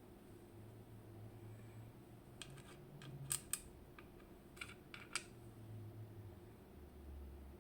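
Sharp clicks and taps of tools and parts on an Abloy Exec disc-detainer lock as it is taken apart, in two short clusters about two and a half and four and a half seconds in, the loudest a quick pair, over a faint low hum.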